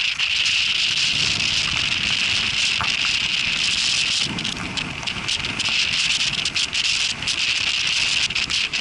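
Heavy wind and rain on the microphone: a steady hiss with many small sharp ticks and a low, uneven rumble of wind buffeting.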